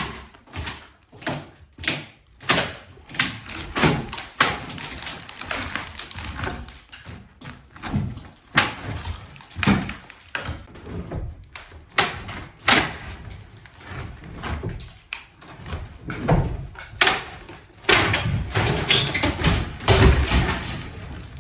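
Demolition of a wooden ceiling and attic floor: irregular bangs, knocks and clattering as boards and plaster are pried loose and fall. Near the end there is a longer stretch of heavier, near-continuous crashing.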